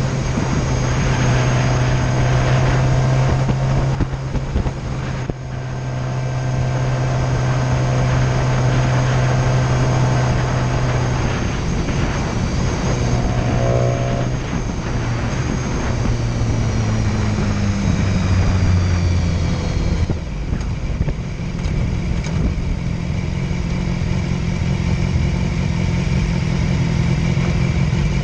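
Motorcycle riding along the road, its engine running at a steady note over wind and road rush. About halfway through the engine note drops in steps as it slows, and from about two-thirds in the steady tone gives way to a rougher, noisier vehicle sound.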